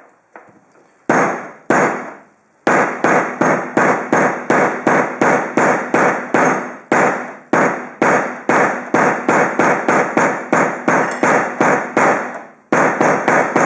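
Repeated blows crushing an HDMI cable in one spot, flattening it. Two single strikes come first, then a steady run of about three blows a second, each with a short ringing tail, with a brief pause near the end.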